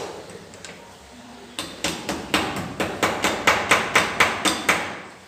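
Hammer blows on steel as a centrifugal pump's shaft is knocked out of the pump: a rapid, even run of about fourteen sharp metallic strikes, about four a second, starting a little over a second in.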